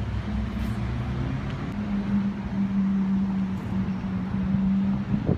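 A steady, low mechanical hum at a constant pitch, like an engine or motor running, growing louder about two seconds in.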